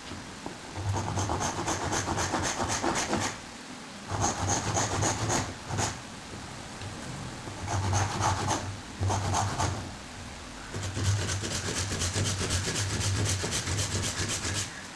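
Handsaw cutting through a strip of wood in quick back-and-forth strokes, in about five bouts with short pauses between them.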